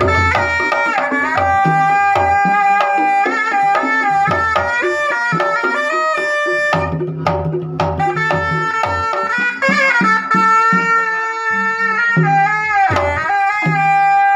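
Sundanese pencak silat drum music: hand drums beating under a shrill, reedy wind melody that slides between held notes.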